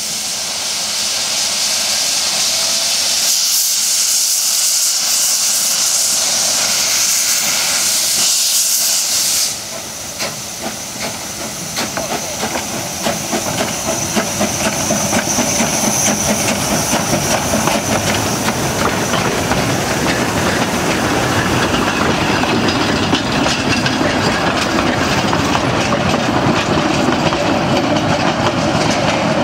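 Narrow-gauge steam tank locomotive venting steam in a loud, high hiss from low at the front, which cuts off suddenly about ten seconds in. Then the train moves off and passes with a rolling clatter of wheels and coaches, growing louder toward the end.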